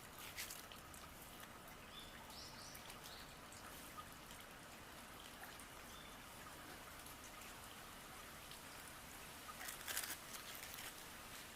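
Faint steady trickle of water from a small garden waterfall, with a few short high-pitched chirps about two to three seconds in and a brief burst of clicking near the end.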